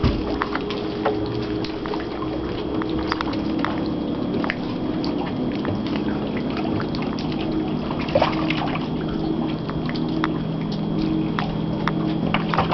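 Water sloshing and trickling as hands reach into a container of caught fish, over a steady low hum, with a few light knocks.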